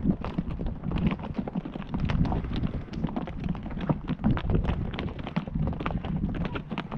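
Horse's hooves clopping on the ground, several irregular strikes a second, over a steady low rumble.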